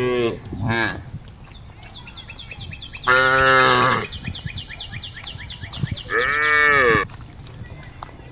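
Cows in a herd mooing, with separate calls about a second long; the last one rises and falls in pitch. A faint, rapid ticking runs between the calls in the middle of the stretch.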